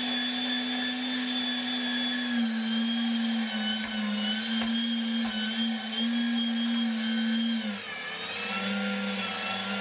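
MEAT! Your Maker 500-watt electric meat grinder running steadily with a motor hum as chilled beef is pushed through it. Near the end the pitch drops for about a second as the motor slows under the load, then picks back up.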